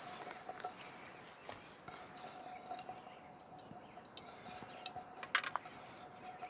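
Light clinks and taps of a metal frying pan being handled and tilted by hand, with a few sharper clicks past the middle.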